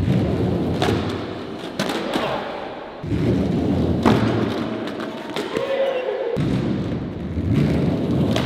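Skateboard on omnidirectional wheels rolling over concrete and a ledge in several rumbling stretches, broken by sharp thuds and clacks of the board coming down.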